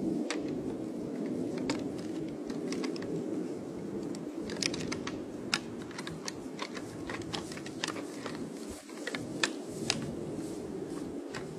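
Antlers of two fighting bucks clicking and clattering in irregular sharp knocks as they push and twist with locked antlers, over a steady background rush.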